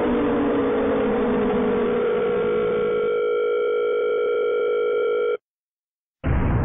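Scary sound effect: a steady droning tone of several held notes, with a lower pitch sliding downward during the first two seconds. It cuts off suddenly about five seconds in, and after a short silence a loud low rumbling hit begins near the end.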